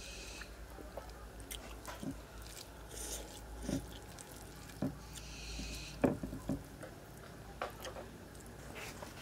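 Eating chira pulao with the fingers: a hand squishing and mixing the rice against a clay plate, with wet chewing sounds. A scatter of short sharp clicks runs through it, the loudest about six seconds in.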